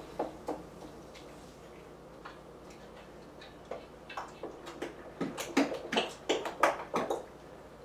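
Thick bread dough being mixed by hand in a large metal bowl: a few faint clicks, then from about four seconds in to about seven a run of irregular clicks and knocks, several a second.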